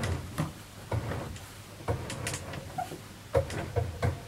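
A homemade table saw's tilting mechanism knocking and clicking irregularly as the blade is tilted back upright by hand.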